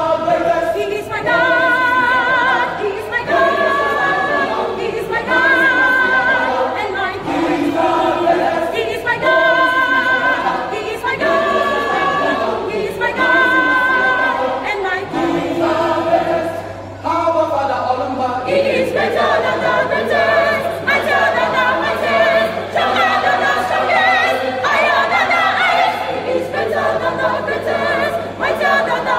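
A church choir singing a gospel choral piece in held phrases with a wavering vibrato. The singing grows fuller and busier about two-thirds of the way through.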